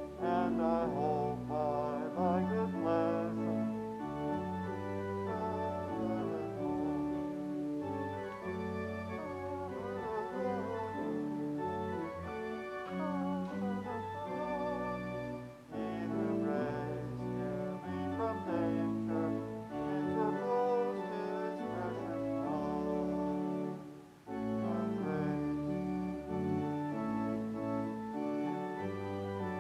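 Church organ playing a hymn in sustained chords, with voices singing along. The music breaks off briefly twice, about halfway through and again near the end, between phrases.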